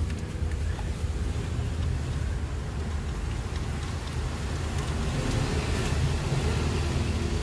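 A steady low rumble, like a vehicle engine running.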